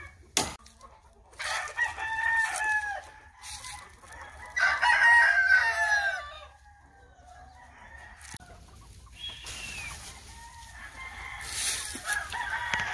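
Gamefowl roosters crowing again and again, long drawn-out crows one after another, loudest about five seconds in, with hens clucking. A single sharp click comes just after the start.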